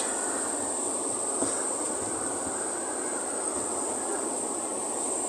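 Steady high-pitched drone of insects over a constant rushing background noise, with one faint knock about one and a half seconds in.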